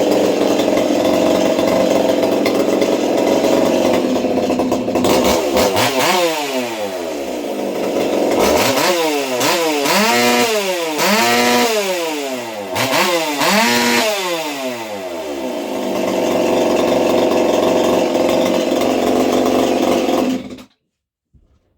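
Ported Partner 5000 Plus 50cc two-stroke chainsaw running after a carburettor rebuild and not yet tuned. It runs steadily, then about five seconds in it is given a string of quick throttle blips, each rising and falling in pitch. It settles back to a steady run and is shut off suddenly near the end.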